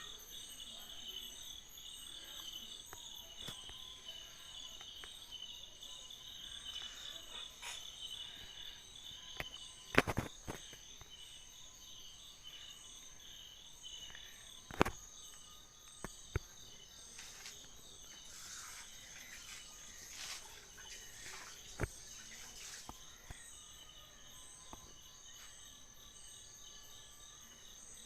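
Steady chorus of insects with a fast pulsing high trill, broken by a few sharp clicks or knocks, the loudest about ten seconds in and others near fifteen, sixteen and twenty-two seconds.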